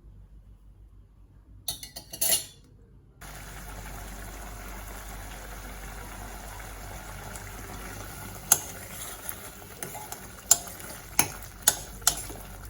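Onion-tomato chutney cooking in a pan with a steady bubbling hiss that starts about three seconds in. A spoon clinks against the pan a few times in the second half.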